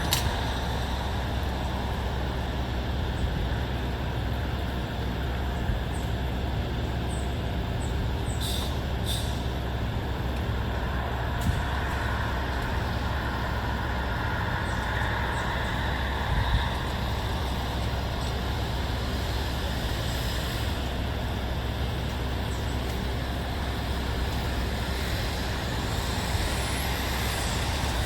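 Steady rumble of distant road traffic, with a few faint high ticks about a third of the way in.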